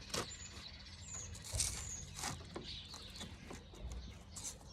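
Scattered light knocks and scrapes of a wooden board being manoeuvred into place against a wooden frame, with birds chirping in the background.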